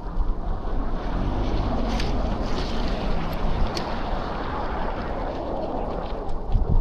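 Wind rushing and rumbling steadily on the microphone of an action camera during a bike ride in a snowstorm, mixed with a steady rush of street noise.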